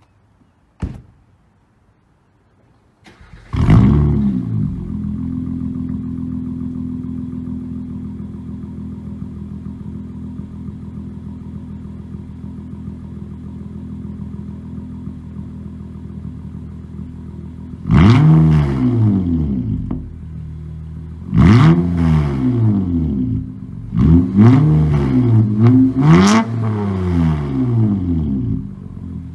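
Acura TLX 3.5-litre V6 with resonator and muffler deleted, starting up about three seconds in with a flare of revs, then idling and slowly settling. It is revved sharply twice, then in a quick run of revs up to 5000–6000 RPM near the end, dropping back to idle. A short sharp click comes about a second in, before the start.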